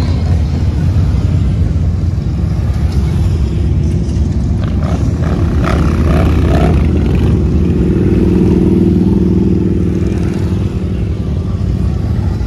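A procession of motorcycles, mostly large touring bikes, riding past at low speed with engines running. One bike passes close and louder from about eight to ten seconds in.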